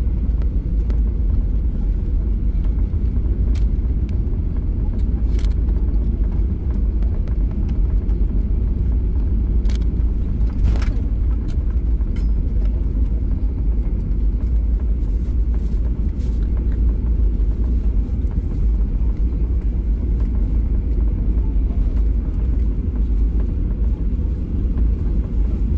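Cabin noise of a Boeing 737-800 on its landing rollout: a steady low rumble from the wheels and airframe rolling over the runway, with spoilers still deployed. A few light clicks sound in the first half.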